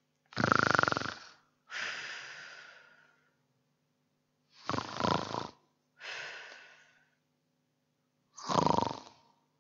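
A person snoring in a play-acted way: three loud snores about four seconds apart, each followed by a softer, fading breath out.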